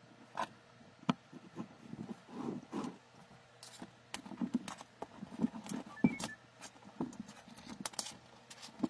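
Scattered light knocks and clicks at irregular intervals: handling noise of spark plugs, a ring magnet and wire being set on a wooden board.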